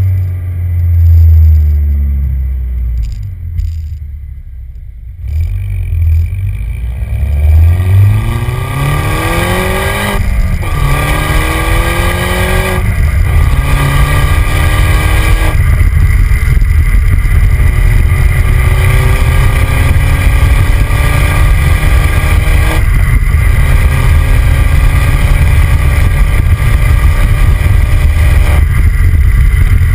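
Exhaust of a 2009 MINI John Cooper Works' turbocharged four-cylinder, heard close up from the rear bumper: a low rumble, a brief easing off, then the car pulls up through several gears, the engine note rising and dropping back at each shift. It then settles into a steady cruise over constant tyre and wind noise.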